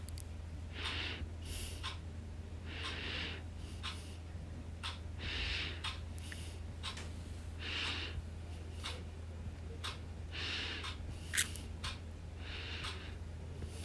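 Soft, regular breathing close to the microphone, about one breath every two and a half seconds, over a steady low hum. There is a single sharp click a little past eleven seconds in.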